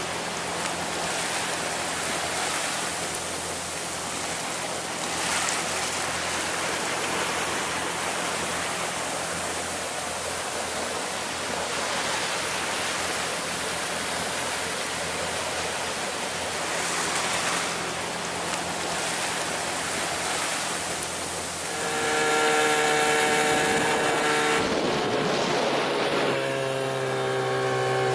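Wind and water rushing past a sailing yacht under sail, an even noise. About 22 seconds in it changes to a small outboard motor running steadily on an inflatable dinghy, its pitch dipping slightly near the end.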